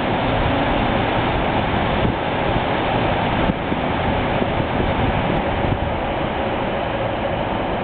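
Steady rushing noise, much of it wind on the microphone, over the running of a Class 156 diesel multiple unit train pulling out of the station.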